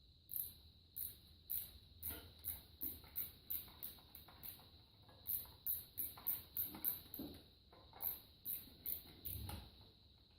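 Ratchet wrench clicking in short back-and-forth strokes, about two to three a second, as a socket works a small starter mounting bolt on a small-engine V-twin.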